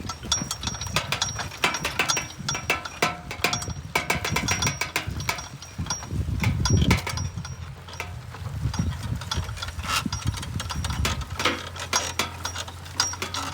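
Wooden-and-metal bull-drawn seed drill rattling and clicking irregularly as it is pulled, over a low rumble.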